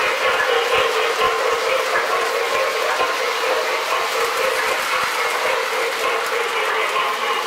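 O-gauge toy train cars rolling past on three-rail metal track: a steady rumble and whir of metal wheels and running motors.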